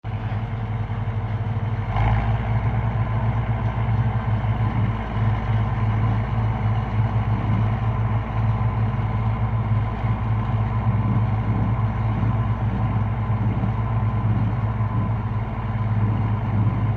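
Leyland 285 tractor's diesel engine running steadily at low revs, with a short knock about two seconds in as the engine note rises slightly.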